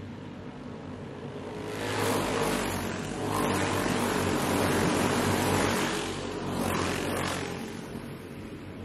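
A pack of racing karts passes close by on a dirt oval, their small engines running at speed. The engine noise swells about two seconds in and stays loud for several seconds as the karts go past in groups, with a last swell near the end before it fades.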